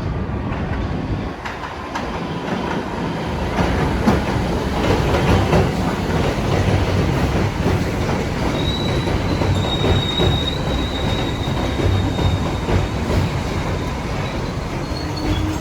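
New York City Subway R62A train running along the track, its wheels rumbling and clattering over rail joints. A thin, high wheel squeal rises over it for a few seconds in the middle.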